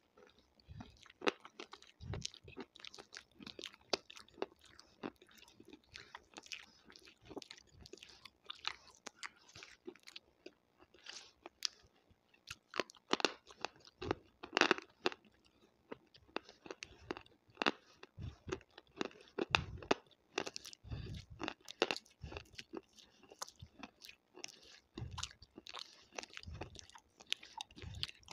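Mouth sounds made right against a clip-on microphone: irregular wet clicks, smacks and crunchy chewing-like crackles from the lips and tongue, coming in quick clusters.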